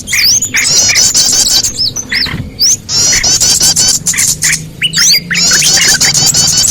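A dense chorus of small songbirds, several calling at once with rapid high chirps, quick repeated trills and squeaky notes, with brief lulls about two and five seconds in. It is a bird-trapping lure recording, meant to draw small birds in.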